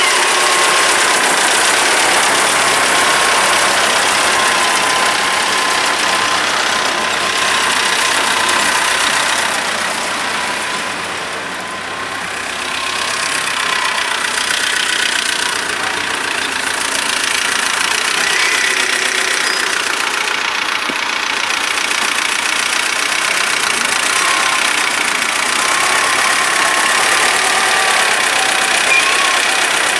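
T-40AM tractor's diesel engine running steadily, dipping a little in level about twelve seconds in.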